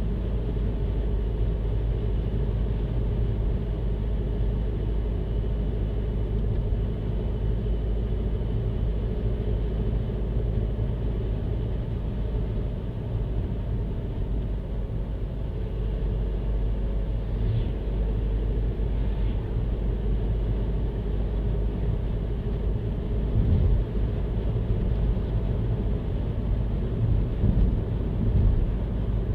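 Steady low rumble of a car driving along a road, tyre and engine noise, with a few louder bumps near the end.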